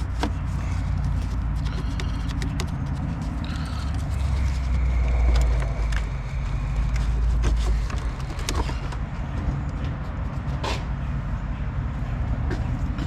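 Scattered clicks and knocks of hand tools on metal while a car battery is being unbolted and worked loose, over a steady low rumble that swells for a few seconds in the middle.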